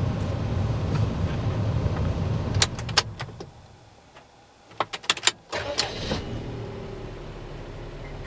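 Daihatsu Tanto Exe's 658 cc three-cylinder engine idling, heard from inside the cabin. It is switched off with a couple of clicks, goes quiet for about two seconds, then there are more key clicks and it cranks, catches and settles back into a steady idle.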